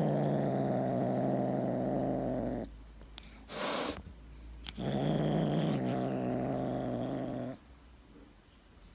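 Domestic cat giving two long, steady, low growls, each nearly three seconds, with a short hiss between them.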